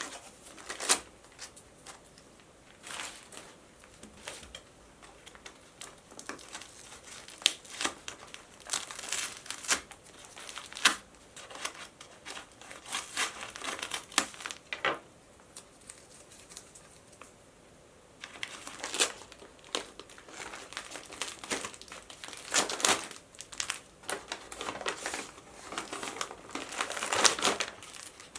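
Packaging crinkling and rustling in irregular bursts as a parcel is handled and unwrapped by hand, with a quieter pause partway through.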